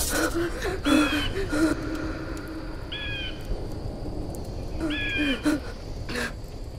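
A bird calling three times, about two seconds apart; each call is short and clear with a slight rise and fall.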